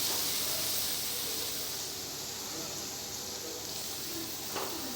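Soft, steady hiss of potol posto (pointed gourd in poppy-seed paste) sizzling gently in mustard oil in the pan, fading slightly.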